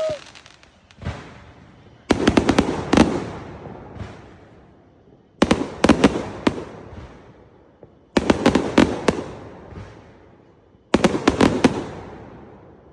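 Fireworks going off: four volleys about three seconds apart, each a quick cluster of sharp bangs and crackles that dies away with echo, after a single small pop about a second in.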